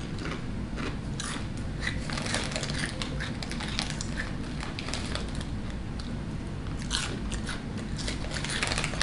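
Crunchy snack chips being chewed close to the microphone: a run of crisp crackles and crunches. Near the end the foil chip bag rustles as a hand reaches into it.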